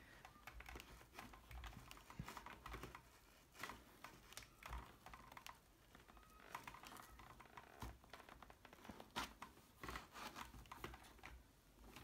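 Faint, irregular clicking and scratching of fingers working at a motorcycle helmet's padded inner lining and the edge of its shell, loosening the lining.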